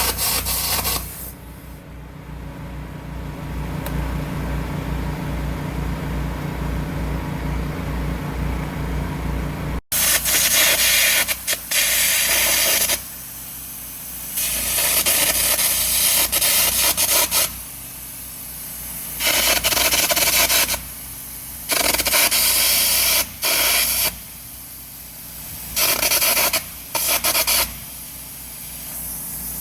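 Air carbon arc gouging with a 3/16-inch carbon electrode at about 250 amps: a loud, harsh hiss from the arc and the compressed-air jet blasting molten metal out of the weld. It comes in repeated passes of one to three and a half seconds with short breaks between them. After a brief burst at the start, there are about eight seconds with no gouging, where only a low engine hum with a steady throb is heard.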